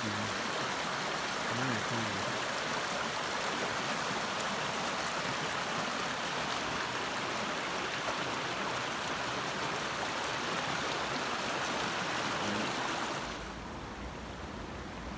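Rushing water of a small rocky brook, tumbling over stones and under an ice-hung log in a steady wash. At about 13 seconds it turns quieter, with a low rumble underneath.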